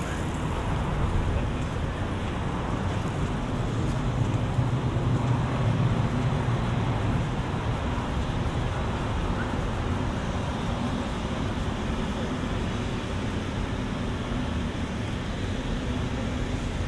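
Steady city-street traffic noise, with a passing vehicle's low rumble swelling about four to seven seconds in.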